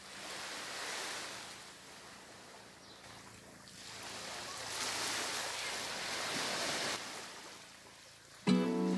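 Surf washing on a sandy shore mixed with wind on the microphone, swelling twice as a rushing hiss. Music with a plucked guitar starts abruptly near the end.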